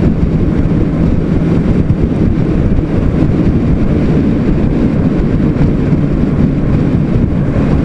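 Sport motorcycle cruising at a steady speed, its engine running at an even pitch under heavy wind rush on the helmet microphone.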